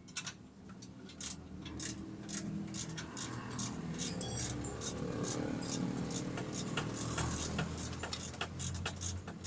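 Metal hand tools, wrenches and sockets, clinking and rattling during underchassis work on a car, with a low steady hum that builds after about a second.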